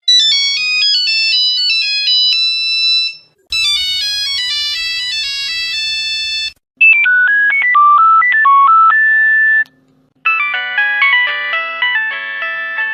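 Nokia mobile phone ringtones, four different short electronic melodies played one after another. Each stops abruptly, with a brief gap before the next starts.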